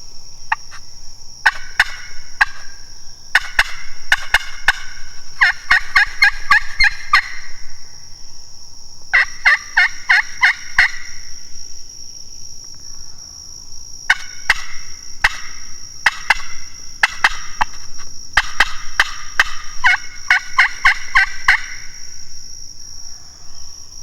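Turkey yelping in several runs of quick repeated notes, with gaps between the runs. A steady high-pitched drone of insects continues underneath.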